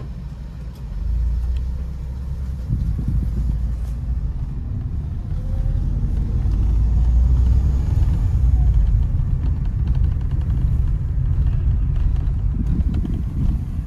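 Low rumble of a Tata Tiago hatchback rolling slowly, heard from inside the cabin: its three-cylinder petrol engine and the tyres at low speed. It grows louder around the middle.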